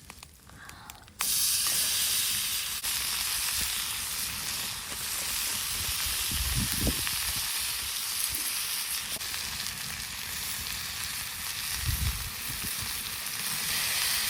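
Food frying on a hot cooking surface, a steady sizzle that starts abruptly about a second in, with a couple of brief low bumps in the middle and near the end.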